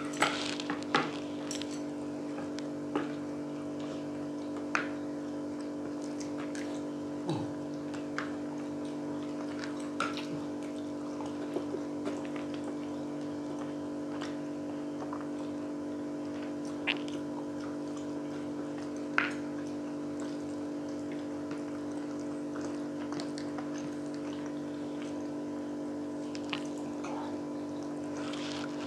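Two people eating fried pork cheek: occasional soft clicks and wet smacks from chewing and from chopsticks and fingers touching plastic plates, over a steady background hum.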